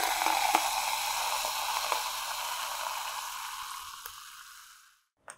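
Soda water fizzing as it is poured into a glass over crushed ice, a steady hiss that slowly dies away and stops near the end.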